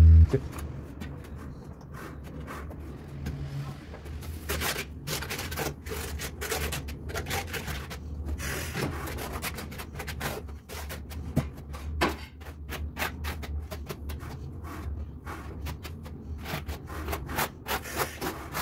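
Tile-laying handwork: a tool scraping and rubbing across the floor in short, irregular strokes, over a steady low hum.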